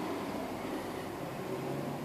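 Steady background room noise: an even hiss with a faint low hum, like ventilation.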